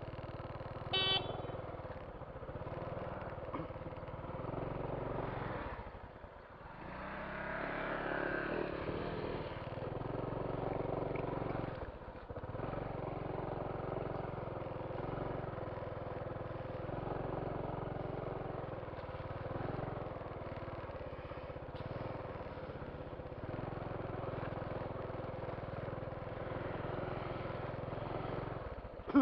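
Motorcycle engine running steadily under way, its note dipping briefly twice, with a short high beep about a second in.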